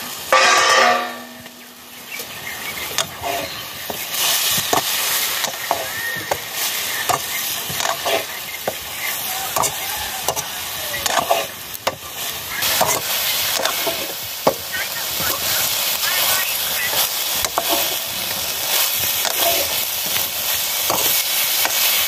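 Food frying and sizzling in a steel karahi over a wood fire, with a metal ladle scraping and clacking against the pan as it is stirred. About half a second in, a brief loud metallic ring as the pan's lid is lifted off.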